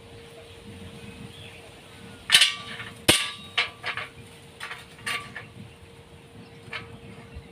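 Sharp metallic clanks: about six irregular strikes, each with a brief ring, the loudest two coming a little over two and three seconds in.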